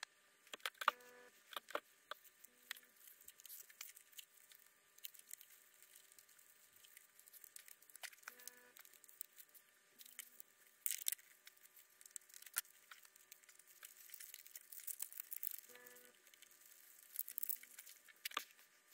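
Faint workbench handling sounds: scattered clicks and short rustles as hands work over a model airplane's fuselage and wiring. A faint short pitched tone sounds in pairs, repeating about every seven seconds.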